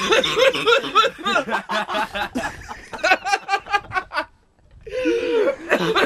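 People laughing and giggling in quick bursts, breaking off for a moment about four seconds in and then starting again.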